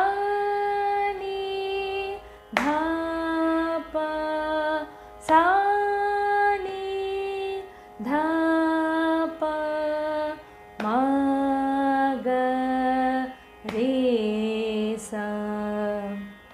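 A woman singing a Carnatic tharasthayi varisai (upper-octave practice exercise) in swara syllables (sa, ri, ga, ma…), held notes in pairs with short breaks between phrases, the line stepping down in pitch near the end.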